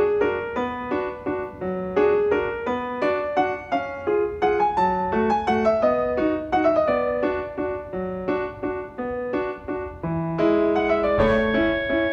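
Background music: a light piano waltz, the playing growing a little fuller about ten seconds in.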